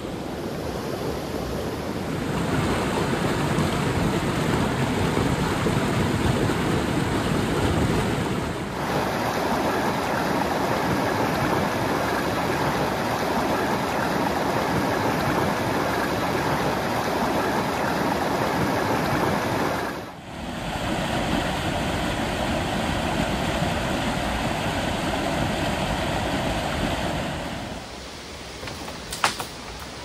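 Forest stream rushing over boulders, a steady rush of water whose tone shifts abruptly several times. Near the end it drops quieter, and a single sharp click sounds.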